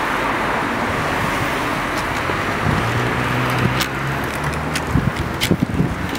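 Steady road traffic noise with a motor vehicle's engine running, and a few sharp clicks in the second half.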